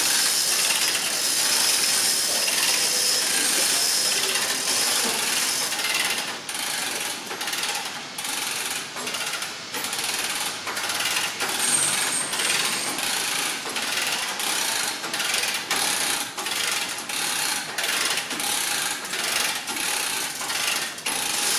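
A come-along chain hoist ratcheting as it lifts a heavy steel stair. After a steadier rattling noise in the first few seconds, it settles into a regular run of sharp clicks, a little under two a second.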